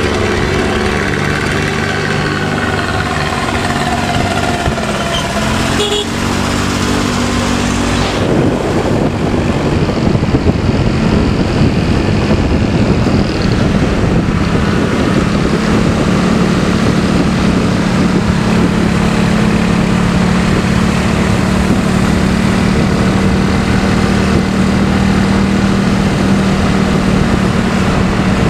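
Bus engine running through a deep, snoring 'ngorok' exhaust, its note gliding up and down. About eight seconds in the sound turns rougher and noisier, and a few seconds later a steady low drone settles in.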